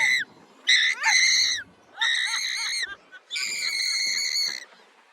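Riders on a fairground thrill ride screaming: a series of long, high-pitched shrieks, each held about a second, with short breaks between them.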